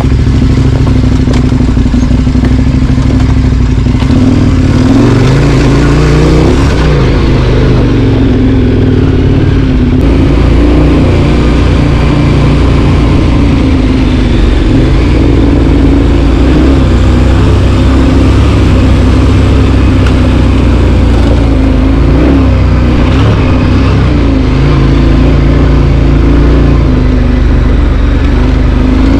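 A vehicle engine running under way, its pitch rising and falling a few times as the revs change.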